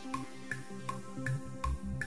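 Background music: a light tune with a steady ticking beat, nearly three ticks a second, over soft held notes and a low bass line.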